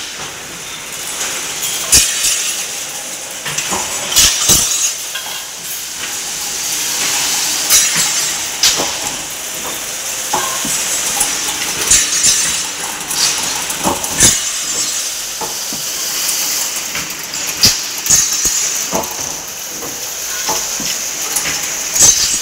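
Chain-link fencing machine running: a steady high hiss with sharp clanks and knocks every second or two.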